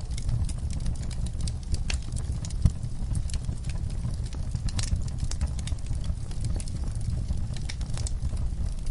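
Wood fire of burning logs crackling, with frequent sharp pops over a steady low rumble; one louder pop about two and a half seconds in.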